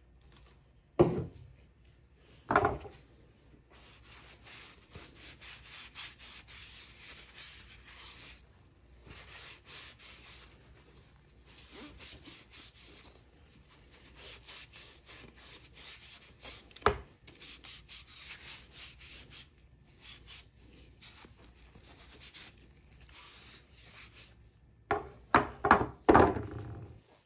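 Cloth wiping along the steel blade of a drawknife in a long run of short rubbing strokes. A couple of knocks near the start and a quick cluster of louder knocks near the end as the wooden-handled tool is picked up and set down on the board.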